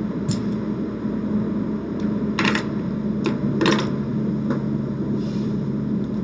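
Gaming chips clicking together as they are picked up, stacked and set down on a craps table, in several short clusters, the loudest about two and a half and three and a half seconds in. A steady low hum runs underneath.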